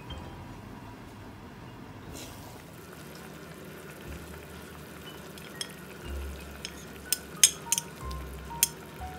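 Salted black beans tipped from a dish into a simmering pork braise: several sharp clinks of the dish against the pan in the second half, over the steady sizzle of the simmering braise, with light background music underneath.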